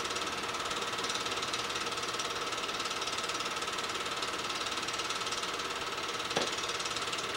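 8mm film projector running, its film-advance mechanism making a steady mechanical clatter with a faint steady whine. A single soft knock about six seconds in.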